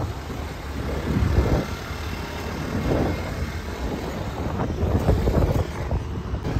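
Wind buffeting the microphone in uneven gusts over a heavy low rumble, as heard riding in a moving vehicle.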